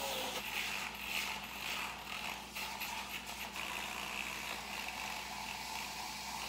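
Handheld battery milk frother whirring steadily in a glass mug of almond milk.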